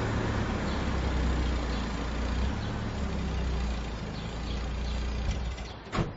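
A car engine running with a steady low rumble that dies away near the end, followed by a sharp click.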